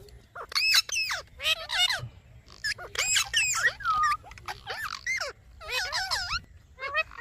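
Indian ringneck parrot vocalising: a string of about seven short, chattering calls that slide up and down in pitch, with brief pauses between them.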